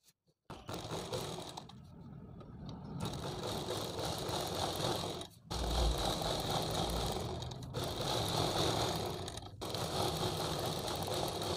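Sewing machine running as it stitches along a fabric edge, going in steady runs with a few brief pauses.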